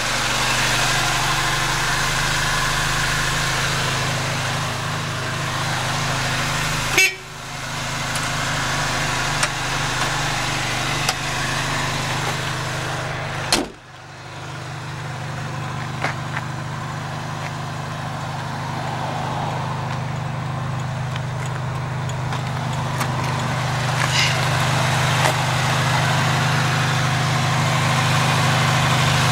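Daihatsu Hijet S66 truck's 550cc engine idling steadily with a low, even hum, broken twice by short dropouts.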